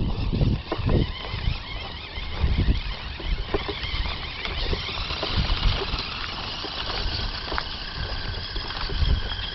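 Whine of a Bwine C11 RC truck's dual electric drive motors and gears as it drives, the pitch wavering up and down with the throttle, over irregular low thumps.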